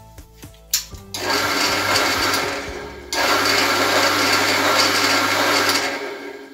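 Pillar drill with a reduction-gear tapping attachment, running an M12 tap into a workpiece: a few clicks, then the machine running steadily, louder from about three seconds in, winding down near the end.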